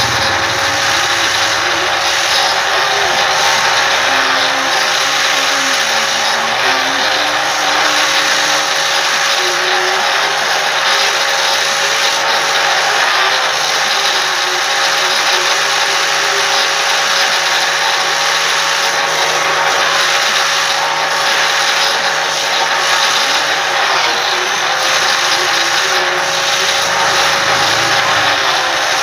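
Electric power tool motor running steadily at high speed, its pitch dipping briefly a few times as it is loaded.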